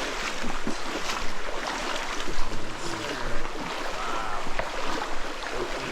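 Steady rush of flowing water, as from a jungle stream, with a few faint voices in the background.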